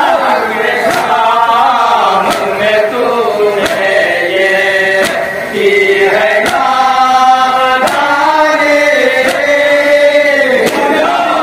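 A group of men chanting a Shia noha (mourning lament) in chorus through a microphone and PA, with long held, wavering lines. Under it, a sharp slap comes about every second and a half, the beat of chest-beating (matam) that keeps time with the noha.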